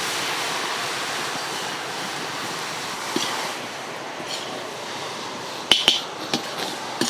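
Steady hissing sizzle of a large pan of grated coconut and jaggery cooking, just after ghee has gone in, with a few sharp clicks near the end.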